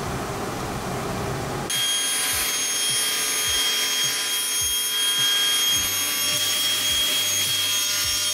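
Table saw with its blade tilted to 15 degrees running and cutting wood, a steady high whine over a rushing noise. The sound changes abruptly about two seconds in.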